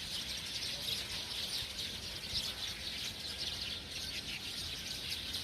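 Many small birds chirping at once, a dense, unbroken chatter of short overlapping tweets.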